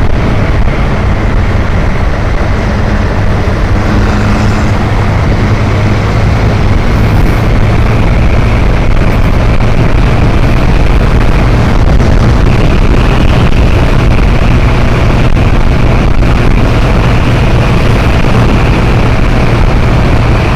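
Motorcycle riding at steady speed: heavy wind rush on the microphone over a steady engine drone.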